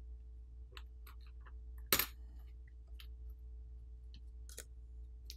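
Light clicks and taps of small tools against a smartphone's internals as a plastic pry pick works the Pixel Fold's small subboard loose, with one sharper click about two seconds in. A faint steady low hum runs underneath.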